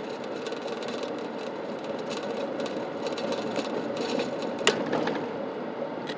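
Steady road and engine noise inside a moving car's cabin, with faint rattles and one sharp click about three-quarters of the way through.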